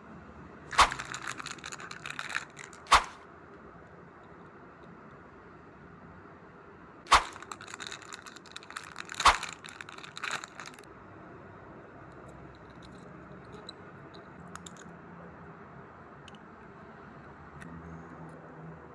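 Clear plastic packaging bag crinkling as it is handled, in two bursts with sharp snaps: one about a second in, the other about seven seconds in.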